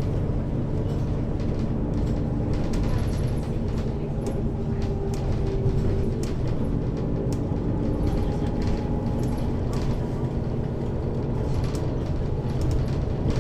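Mercedes-Benz Citaro city bus driving, heard inside from above the second axle: steady running of the engine and ZF Ecomat automatic drivetrain with a deep rumble and a few pitched tones that swell and fade. Small rattles and clicks sound throughout.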